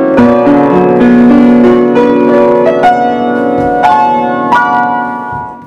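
Solo piano playing a slow melody over sustained chords, notes struck every half second or so and left ringing; the sound fades out near the end.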